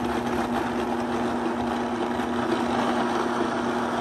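Countertop blender motor running steadily, churning pineapple chunks into a purée: an even motor hum and whine over the noise of the blending fruit.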